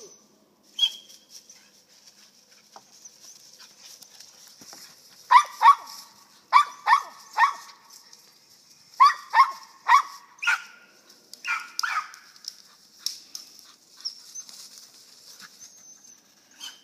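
Squirrel dog barking up a tree, treeing: sharp barks in quick pairs and triplets with short pauses between, starting about five seconds in.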